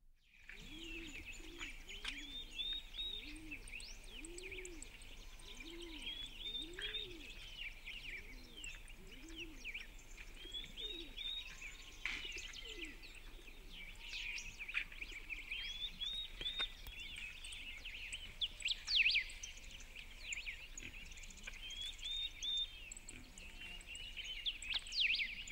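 Countryside birdsong: a songbird repeats short phrases of quick high chirps every few seconds. Through the first half a pigeon coos low and evenly underneath.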